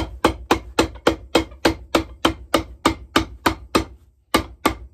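A cobbler's hammer pounding a leather shoe sole held on a metal shoe stand, in a steady run of sharp strikes at about four a second, with a short break near the end before the hammering resumes.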